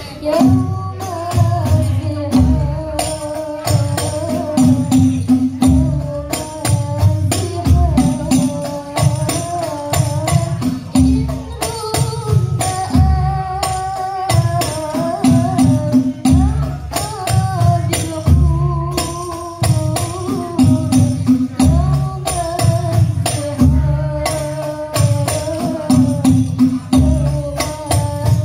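Banjari ensemble performing sholawat: girls' voices singing a wavering melody through microphones over rebana frame drums beating a steady, driving rhythm, with sharp jingling strokes on the offbeats.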